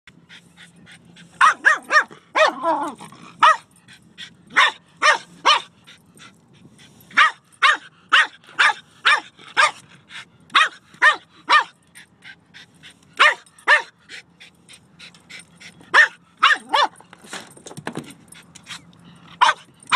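Dog barking over and over in short, sharp barks, coming in quick runs of two to four with brief pauses between.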